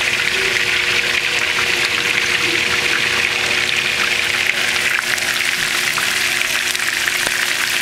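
Flour-dusted shrimp shallow-frying in hot oil in a skillet: a loud, steady sizzle with many small crackles and pops, over a faint steady hum.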